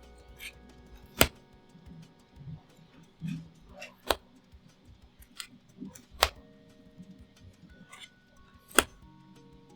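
Magic: The Gathering trading cards being handled during a card-by-card reveal: four sharp clicks two to three seconds apart, with fainter ticks between, over soft background music.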